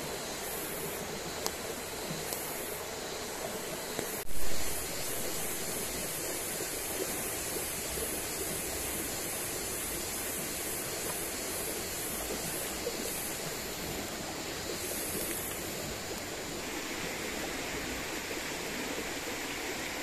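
Steady rushing of a small stream flowing over rocks, with one brief louder sound about four seconds in.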